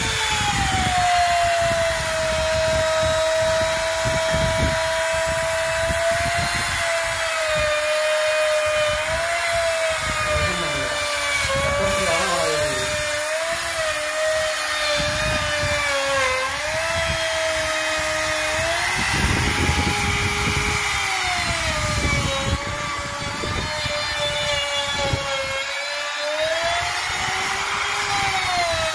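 Handheld electric trim router running at high speed and cutting along the edge of a PVC laminate sheet: a steady high whine whose pitch sags and recovers several times as the bit cuts.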